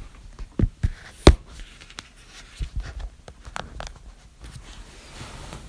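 A person hiccuping: a run of short, sharp hiccups at uneven spacing, the loudest a little over a second in.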